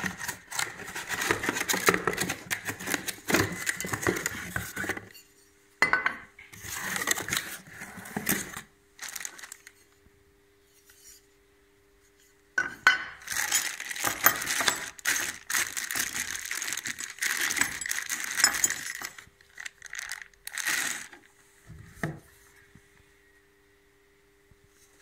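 Unboxing handling noise: cardboard packaging and plastic bags rustling and crinkling, with light clicks and clinks of metal tool parts such as the grinder's wheel guard. It comes in several bursts with short pauses between.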